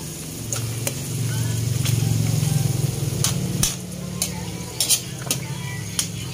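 Isaw deep-frying in oil in a metal wok, sizzling steadily, while a metal spatula stirs it, clinking and scraping against the wok about eight times. A low hum swells under it in the first half and drops off about three and a half seconds in.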